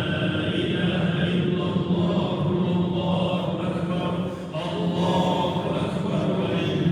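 A man's voice reciting the Qur'an in a melodic chant, holding long drawn-out notes, with a short breath pause about four and a half seconds in.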